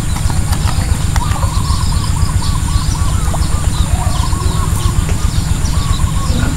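A steady low rumble of wind buffeting the microphone, with a bird chirping over it in quick repeated runs of short notes.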